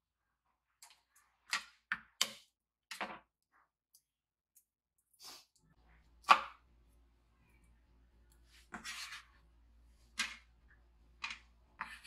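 Kitchen knife chopping garlic cloves on a wooden cutting board: separate, unevenly spaced knocks of the blade on the board, the loudest about six seconds in.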